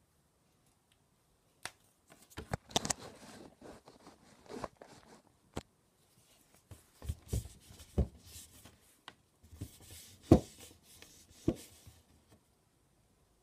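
Handling noise close to the microphone: a run of sharp knocks and taps with rustling between them, as hands move the camera and the blu tack pieces about on a wooden desk. The loudest knock comes about ten seconds in.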